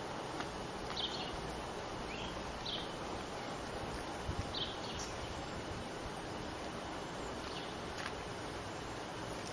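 Outdoor ambience: a steady hiss with about six short, high chirps from a small bird spread through it, and a few faint clicks.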